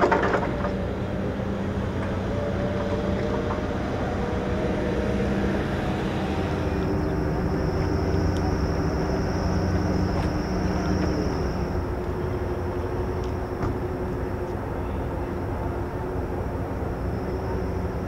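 Ship engines running in a steady low drone with a few held tones, from the departing Arleigh Burke-class destroyer and the harbor tugboats alongside it. A thin high whine joins about seven seconds in, fades out a few seconds later and comes back near the end.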